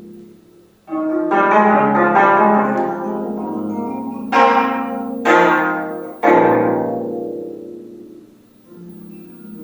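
25-string gayageum, the Korean plucked zither, played solo. A note dies away, then plucked chords enter about a second in. Three strong accented plucks follow in the middle, each ringing out and fading, and softer notes come in near the end.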